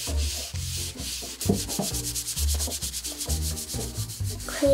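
Kitchen sponge scrubbed back and forth across a wooden countertop, a steady run of quick rubbing strokes.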